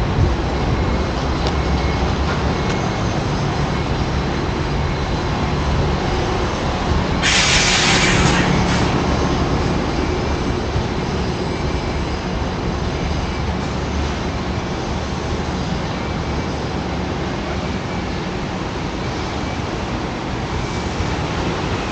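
Steady rumble of a train running on nearby rail tracks, with a brief loud hiss about seven seconds in.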